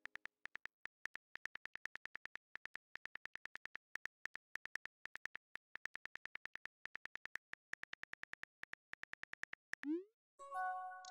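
Simulated phone keyboard clicks, a quick even tapping of several clicks a second as a text message is typed out letter by letter. Near the end a short rising swoosh and a chime of a few steady tones sound as the message is sent.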